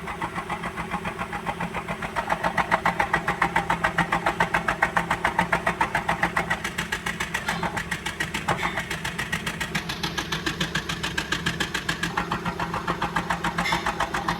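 Maruti Wagon R K-series petrol engine idling with a misfire, heard at the exhaust tailpipe: an even 'tak tak tak' puffing of several beats a second. The mechanic takes it for one cylinder not firing.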